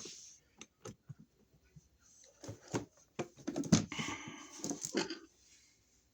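Metal outlet cover plate being fitted and screwed onto a wall receptacle. Scattered light clicks come first, then a cluster of metallic clinks and scraping from about two and a half to five seconds in.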